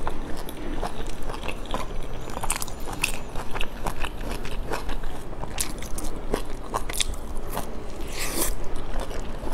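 Close-miked eating of a soft boiled dumpling: biting and wet chewing, with many sharp mouth clicks and smacks. A brief hiss comes about eight seconds in.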